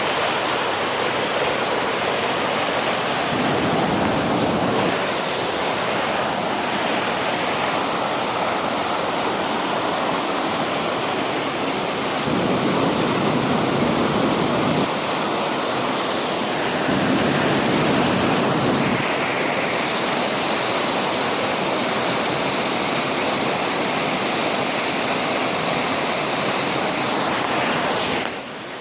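Steady rush of water from a mountain waterfall, an even wash of noise that swells a little now and then. It drops away abruptly right at the end.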